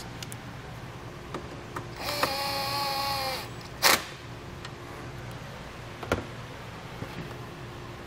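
Battery-powered driver with a 10 mm socket running for about a second, a steady motor whine, as it runs a nut down onto a fuse box's terminal stud. A single sharp click follows.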